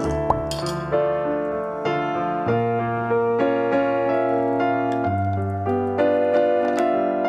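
Background piano music, a melody over held chords.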